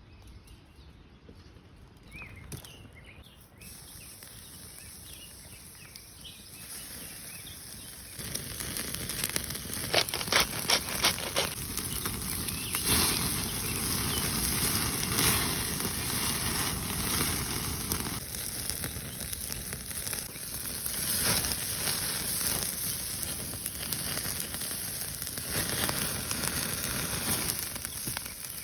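Campfire burning with crackling and sharp pops. It grows louder about eight seconds in, with a quick run of pops around ten seconds. A few faint bird chirps come in the first seconds.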